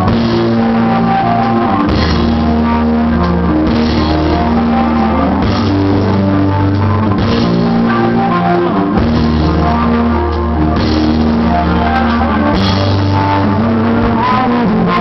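Rock band playing live: drum kit, guitar and bass in a loud, steady instrumental passage with no vocals, the bass notes changing every couple of seconds.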